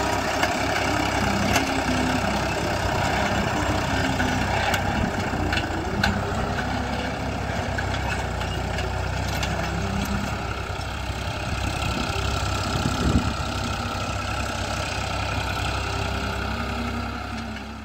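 Farmtrac 60 Valuemaxx tractor's three-cylinder diesel engine running steadily under load as it pulls a nine-tine cultivator through the soil, with a few sharp clicks here and there. The sound fades away near the end.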